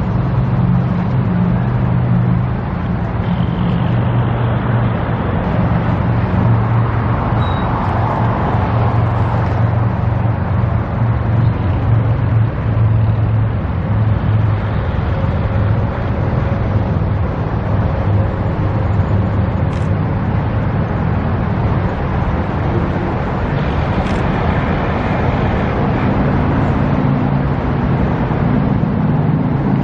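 A vehicle engine running steadily with a low hum, over road traffic noise.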